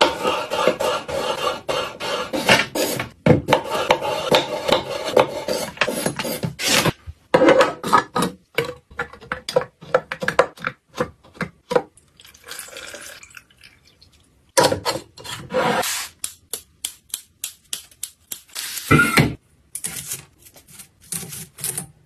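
Close-miked kitchen handling sounds: a rapid run of small clicks, knocks and rubbing as lemons are worked on a wooden cutting board and citrus slices are stacked into a clear plastic container, with a brief lull partway through.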